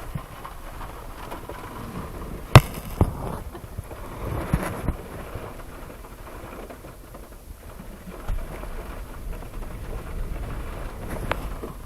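Rain and a steady low rumble heard inside a moving SUV on a rough trail. A sharp knock comes about two and a half seconds in, followed by a few smaller thumps.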